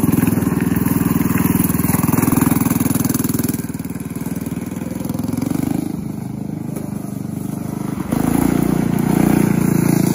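Predator 212 single-cylinder four-stroke go-kart engine with a stage 5 kit (billet rod and flywheel, aggressive cam, non-EPA carb) running hard as the kart drives. It drops off about 4 s in as the kart moves away and grows louder again about 8 s in as it comes back.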